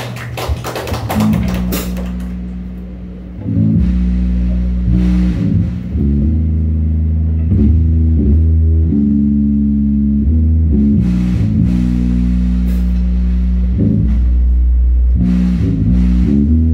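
Live rock band opening its set with a slow, heavy riff. After a couple of seconds of quick hits, loud low guitar and bass chords come in about three and a half seconds in, held and shifting every second or two, with a few drum crashes.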